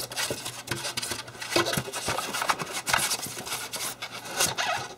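Polystyrene foam packing squeaking and scraping as a metal display-stand part is worked out of its cut-out, with uneven rubbing and small knocks and a few short squeaks near the end.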